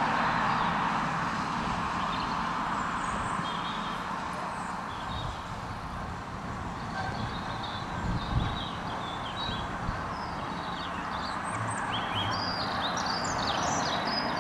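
Small birds chirping and singing in short high notes, more often near the end, over a steady outdoor background noise that eases off during the first few seconds.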